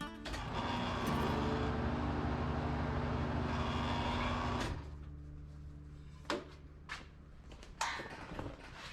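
Tire changer's motor running steadily with a noisy scrape over a low hum, stopping about four and a half seconds in; a quieter hum and a few sharp knocks follow.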